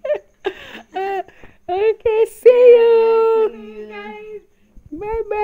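Women's voices laughing, then sing-song calls with long drawn-out held notes, the longest about a second, as the women wave goodbye.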